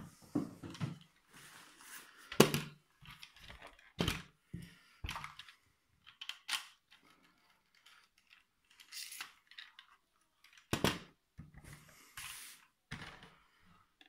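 Hands handling a toy remote-control car's plastic handset and body: about a dozen sharp, irregular clicks and knocks with light rustling between, the loudest a couple of seconds in.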